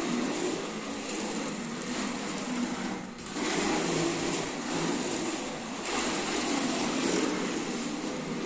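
Plastic wheels of a foot-pushed ride-on toy car rolling over a hard floor, a steady rumbling rattle that drops away briefly about three seconds in.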